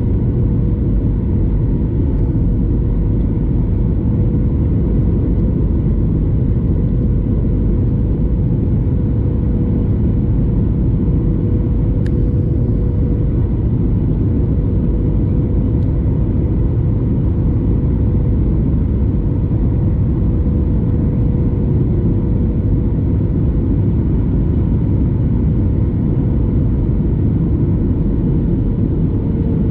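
Boeing 737 cabin sound beside the wing: the CFM56 turbofan engine and rushing air make a loud, steady rumble with a steady hum through it, as the jet lands and rolls along the runway. There is one faint click about twelve seconds in.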